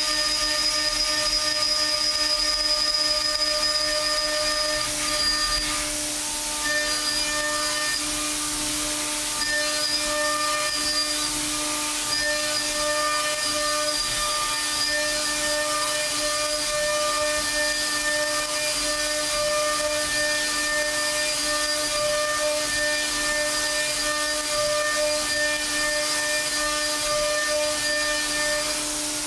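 DMG MORI DMU 50 mill's spindle at 15,000 RPM driving a Kennametal HARVI III end mill through 1018 steel at 1,000 inches per minute: a steady whine of several tones over a loud hiss, with chips spraying off the cut. The tones break and shift briefly about six seconds in.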